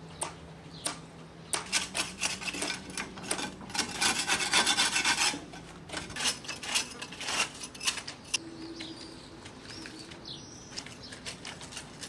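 Repeated rough scraping strokes of a hand tool rasping over a hard surface, coming in quick irregular runs. They are densest and loudest about four to five seconds in, then thin out to scattered strokes.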